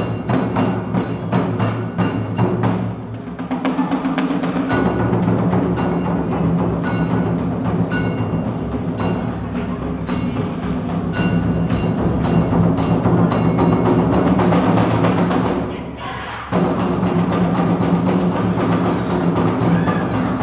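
Awa odori festival music played live: a hand-held kane gong struck in a quick, ringing rhythm over a small shime-daiko and a large barrel drum. The strikes stop briefly about three seconds in and again near the end, then start again.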